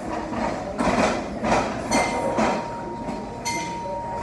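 A fork clinking and scraping on a plate in short strokes, with restaurant background noise.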